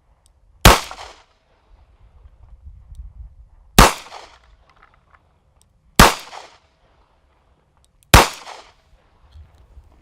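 Four shots from a snub-nosed scandium-titanium .357 Magnum revolver firing .38 Special 158-grain lead round-nose loads, fired about two to three seconds apart. Each shot is a sharp crack with a short fading ring.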